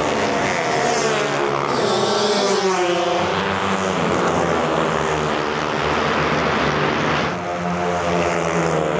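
Several small motorbikes racing down a drag strip. A dense mix of engines runs hard throughout, and one passes close about two to three seconds in, its pitch dropping as it goes by.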